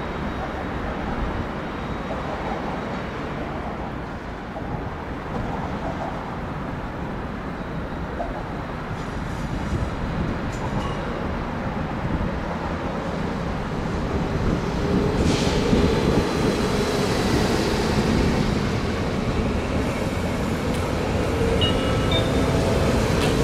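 Train running on the tracks: a continuous rumble of wheels and running gear that grows louder about two-thirds of the way through, with added high hiss.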